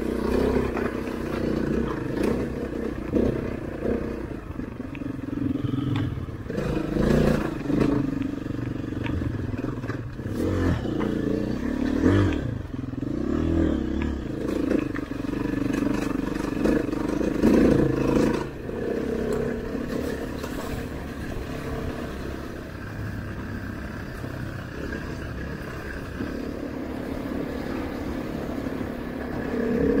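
KTM dirt bike's engine revving up and down over a rough, rocky trail, with clatter and knocks from the bike over the stones. About two-thirds of the way through it settles into a steadier, quieter run.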